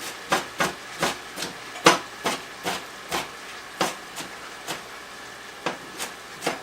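Kitchen knife chopping an onion on a cutting board: quick, uneven knocks about two to three a second, over the steady sizzle of ground beef browning in a pan.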